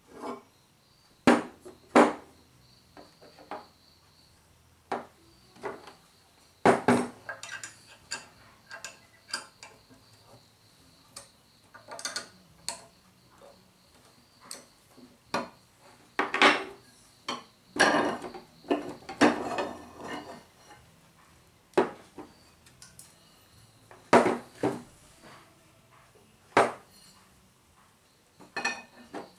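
Steel parts and hand tools of a manual pipe bender clinking and knocking irregularly as it is taken apart, with steel pins and nylon rollers lifted off and set down on a wooden workbench. A denser run of rattling comes about two thirds of the way through.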